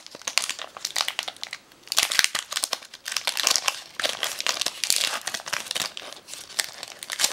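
Foil wrapper of a Pokémon trading-card booster pack crinkling and crackling in the hands as it is opened.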